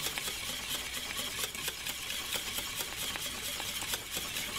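Wire whisk beating thickening peanut porridge in a stainless steel saucepan: quick, rapid strokes of the whisk scraping and clicking against the pan with a steady swishing hiss.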